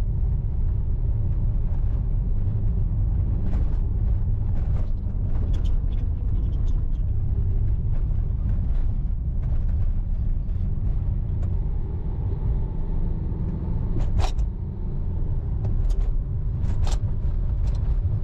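Steady low rumble of road and engine noise inside a Maruti Suzuki Ertiga's cabin as it drives along a highway, with a few faint clicks in the second half.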